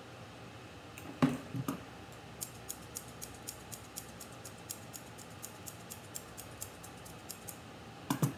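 Grooming shears snipping a small dog's hair in a quick, even run of crisp clicks, several a second, from about two seconds in until near the end. A few louder knocks come about a second in and again at the very end.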